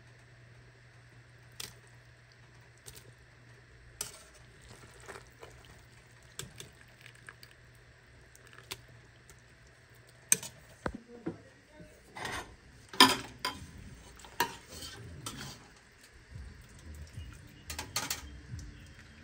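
Metal utensil stirring in a cooking pot, with scattered clinks, knocks and scrapes against the pot. The clatter is sparse at first, then busier and louder in the second half.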